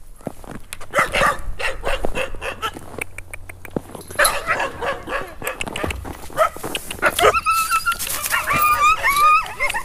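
Village dogs in a chained dog yard barking, with high, wavering whines and yips from about seven seconds in. Short crunching steps in snow through the first few seconds.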